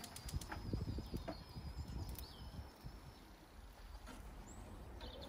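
Sausages cooking on a gas barbecue grill, with scattered sharp crackles and clicks over a low rumble; a faint thin high whistle fades out about halfway.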